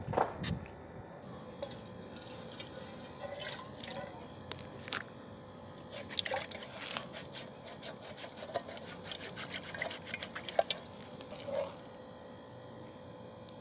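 Scattered light clicks and taps of a spoon against a metal camping pot while eating from it, over a faint steady hum.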